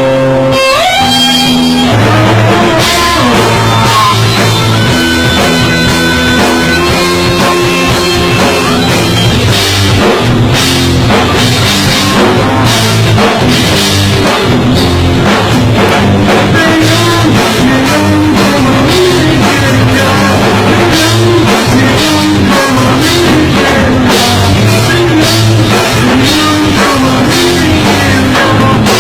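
Rock band playing, with a drum kit and guitar. A rising pitch glide comes about a second in, and the drums come in harder about ten seconds in.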